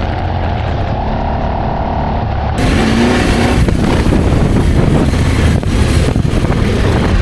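Adventure motorcycle engine running as the bike rides an off-road trail. About two and a half seconds in, the sound turns abruptly louder and rougher, with heavy wind rush over the engine.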